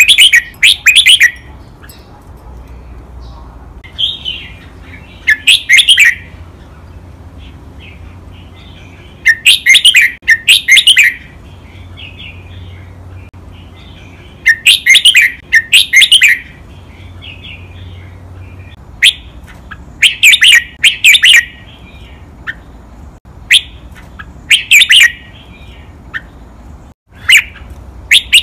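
Red-whiskered bulbul singing loud, short phrases of quick whistled notes, often given in pairs, repeated every few seconds.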